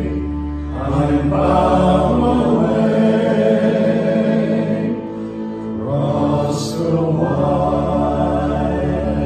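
Male shanty choir singing a slow song in harmony, holding long notes, over a low bowed cello line that drops out for a few seconds in the middle.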